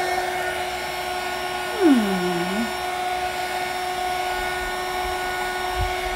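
Handheld craft heat gun running steadily, its fan blowing hot air with a constant hum and whoosh to dry a fresh coat of paint.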